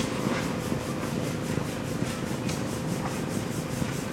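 Antique steam traction engine running, a steady hiss and mechanical clatter with a faint even beat of about four to five a second.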